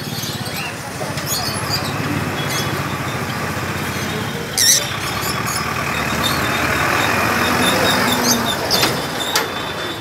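Street traffic noise with an engine running close by, a pulsing low rumble through the first half. A short, sharp, high-pitched sound a little under five seconds in is the loudest moment.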